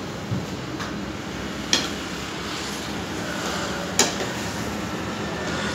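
A steady mechanical hum with two sharp knocks, one a little under two seconds in and one about four seconds in.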